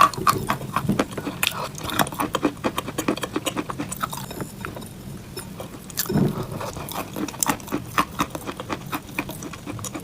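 ASMR fake-eating crunch sounds: a rapid, irregular run of crisp crunching and crackling clicks, as of biting into something crunchy.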